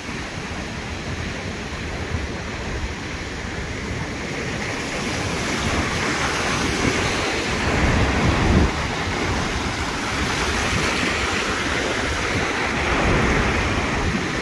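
Ocean surf breaking and washing around a concrete breakwater, a continuous rushing that swells louder about halfway through and peaks with a low rumble around eight seconds in. Wind buffets the microphone.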